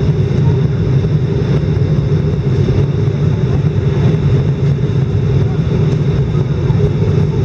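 Steady cabin noise inside an Airbus A319 airliner on approach: a low, even roar of engines and airflow, with faint steady high tones above it.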